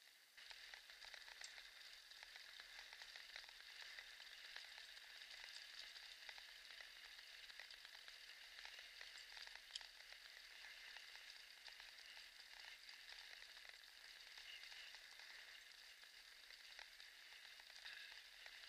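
Faint steady sizzling hiss with many small clicks and rattles from kick-scooter wheels rolling along a country road.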